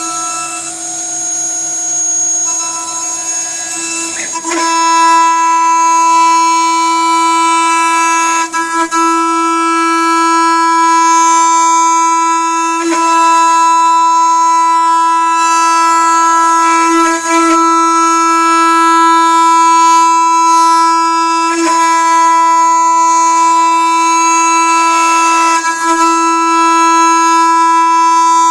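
CNC router spindle running at high speed with a steady, high-pitched whine while milling a cellulose acetate eyeglass temple. It gets louder about four seconds in, with short breaks in the cut every four seconds or so.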